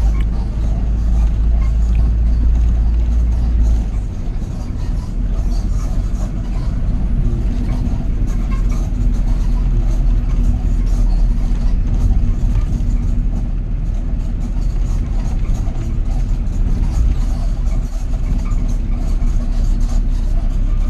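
Engine and road rumble heard inside a moving vehicle: a steady low drone whose deepest part drops away about four seconds in.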